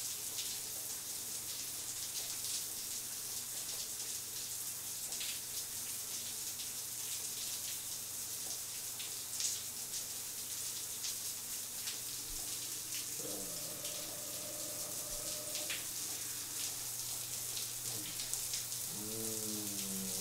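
Shower running: a steady hiss of water spraying from the shower head onto a tiled floor, with scattered droplet splatters.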